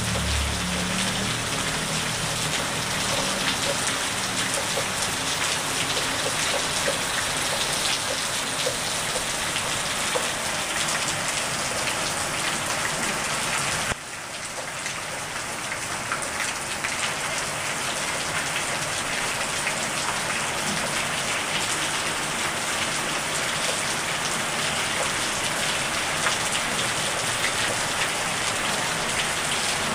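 Steady rain falling on wet ground and pavement, a dense, even hiss with no thunder. Midway the sound drops suddenly, then builds back up over a few seconds.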